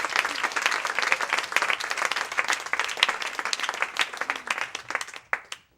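Audience applauding, a dense patter of clapping that thins out and dies away to a few scattered claps near the end.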